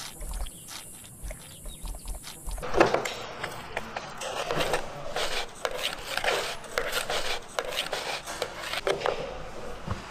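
Hand work on wet clay tiles: light taps, then from a few seconds in repeated scraping and rubbing strokes of a tool on clay, about one or two a second.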